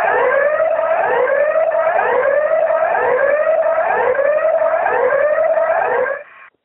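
Sellafield nuclear site criticality alarm: a repeated rising whoop, about one a second, which stops abruptly about six seconds in. Heard over a telephone line. It signals a criticality, an order to leave the building at once by the quickest route.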